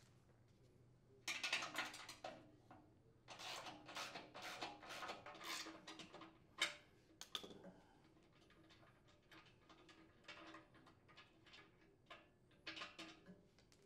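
Light metallic clicks and clinks of a socket wrench and open-end wrench working the nuts and bolts on a chipper shredder's steel housing. They come in several short bursts, with a couple of sharper single clicks near the middle, and grow fainter and sparser in the second half.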